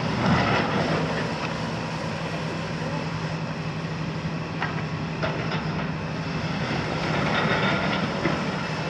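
Hitachi 350 demolition excavator with a Kiesel KMC 400 long-reach boom: its six-cylinder Isuzu diesel engine runs with a steady hum while the grab crunches and scrapes through concrete rubble. The crunching is loudest about half a second in and again shortly before the end.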